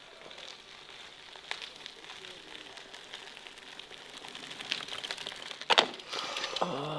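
A bicycle rolls up on a dirt road and stops, with scattered clicks and crunches that grow louder as it nears. There is one sharp knock near the end, followed by a short vocal sound from the rider.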